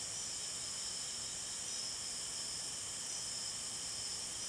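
Handheld heat-shrink gun running with a steady hiss while it heats a plastic wiper-arm bushing to soften it.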